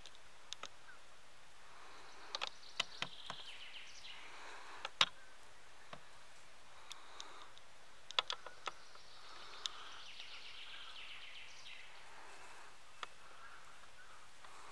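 A European badger rooting through dry leaf litter and twigs, giving scattered sharp clicks and crackles over a faint steady hiss. Birds sing in the background.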